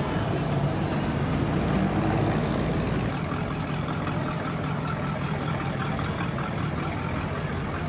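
Car engine running at low speed, a steady low rumble, swelling slightly for a moment about two seconds in.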